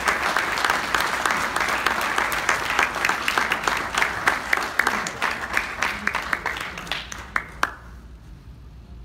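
Audience applauding, the dense clapping thinning out after about five seconds into a few scattered claps that stop near the end.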